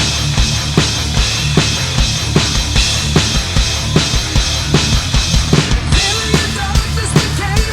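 Heavy rock song with a drum kit beat played on a Millenium MPS-850 electronic drum set: a steady, evenly spaced kick and snare pattern over a dense, loud band mix. A melodic line comes in on top about six seconds in.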